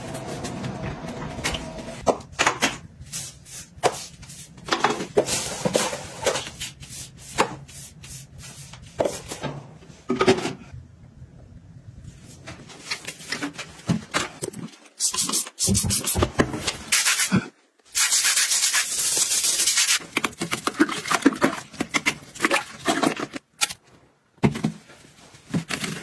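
A run of household cleaning sounds: rubbing and scrubbing strokes with sharp clicks and knocks between them, and a steady hiss lasting about two seconds a little past the middle. Near the end, a toilet brush scrubbing inside a toilet bowl.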